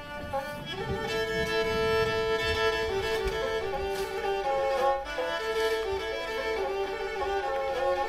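Background music: a Black Sea kemençe, a bowed fiddle, playing a quick melody.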